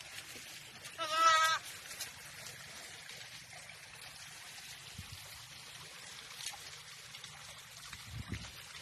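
A goat bleats once, a single wavering, quavering call about a second in.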